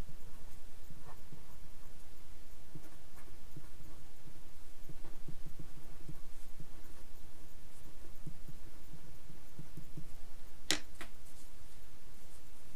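Felt-tip pen writing on paper: faint, irregular scratching strokes over a steady low hum. A single sharp click comes near the end, after the writing stops.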